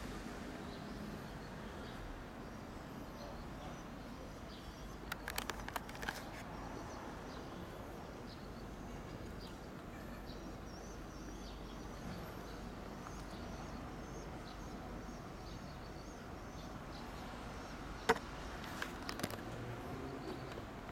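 Quiet outdoor background noise, steady and even, broken by a few short clicks about five seconds in and one sharper click near the end followed by a few smaller ones.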